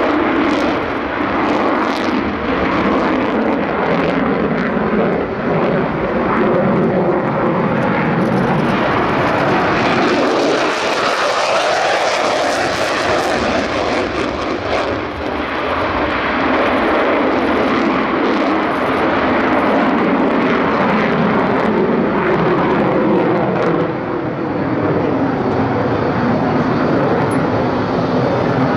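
Military jet taking off and departing, its engine noise continuous and loud. The sound grows brighter and sharper around the middle as the aircraft passes closest, then dulls again as it draws away.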